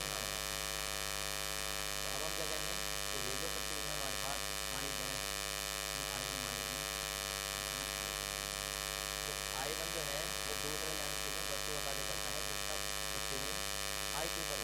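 Steady electrical buzz from inverter-powered lighting picked up on the recording: a constant hum with many evenly spaced overtones reaching high into the treble, unchanging in level.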